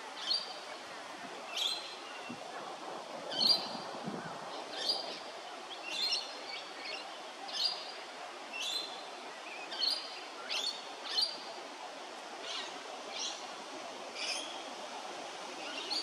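Australian king parrot giving short, high, piping calls over and over, about one a second.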